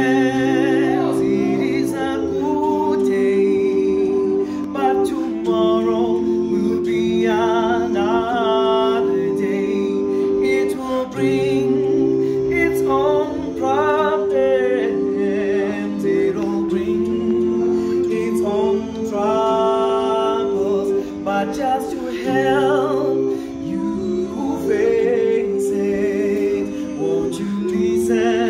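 Male a cappella vocal group singing in close harmony: a lead voice over sustained backing chords and a low bass part, with no instruments.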